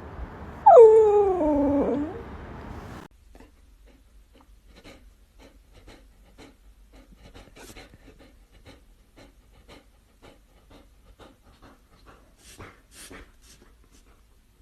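A dog gives one drawn-out whine that falls in pitch. It is followed by quiet, quick panting, with a few louder breaths near the end.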